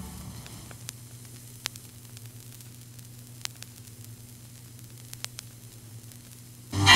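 Vinyl LP surface noise in the silent band between tracks: steady hiss and a low hum with a few scattered clicks and pops. Theatre organ music comes in sharply near the end.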